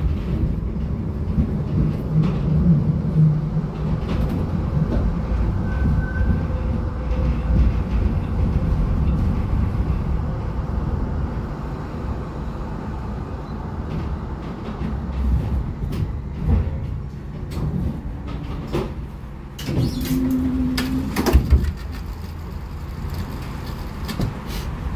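Inside a 1981 LHB GT6 tram on the move: a steady low rumble of the running gear on the rails. About twenty seconds in comes a short cluster of knocks and clatter with a brief tone.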